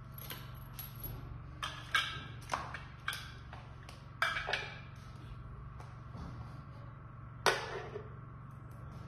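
Irregular clicks and knocks of small hard parts being handled and set down on a tile floor, about ten in all, the loudest near the end, over a steady low hum.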